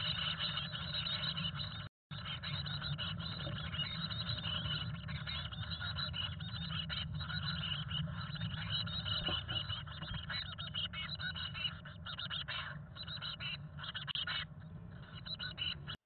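Chickadee nestlings begging for food inside a nest box: a dense, continuous chatter of high calls while a parent feeds them, over a steady low hum. The calls thin out near the end as the chicks settle. The sound cuts out for a moment about two seconds in.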